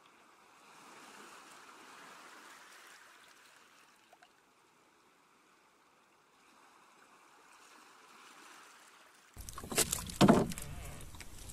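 Faint, steady water sounds around a small boat. About nine seconds in, sudden loud splashing breaks in, with sharp knocks.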